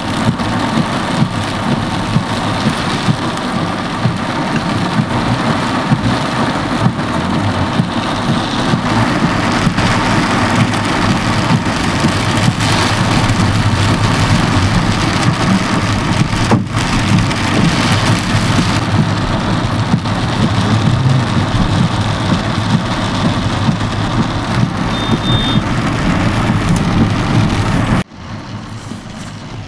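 Heavy rain drumming on a car's roof and windscreen, heard from inside the moving car, over a steady rumble of engine and tyres on the wet road. It cuts off suddenly near the end to something much quieter.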